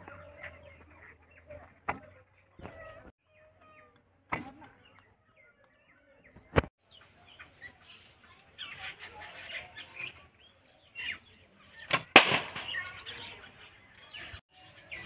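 A homemade bamboo bow shooting an arrow: two sharp cracks close together near the end, the string's release and snap, much louder than anything else. Before it come a few isolated clicks, and bird chirping runs through the second half.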